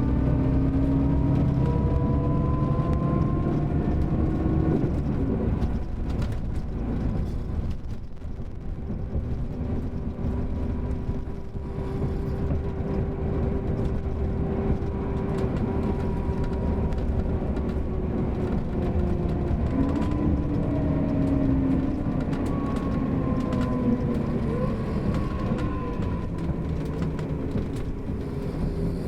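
Mercedes-Benz OM-457LA straight-six turbodiesel and ZF automatic gearbox of a double-decker coach running under way: a steady low rumble with a whine whose pitch slides down over the first few seconds, holds steady, then rises again past the middle and falls near the end as the bus changes speed.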